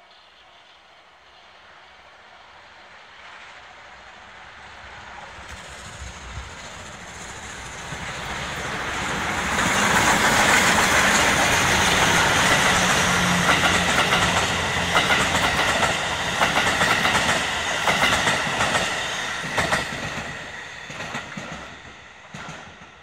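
JNR Class D51 2-8-2 steam locomotive (D51 200) running under steam as it passes close by. It swells from faint to loud over about ten seconds, with a rhythmic clatter of wheels and rods, then fades near the end as it moves away.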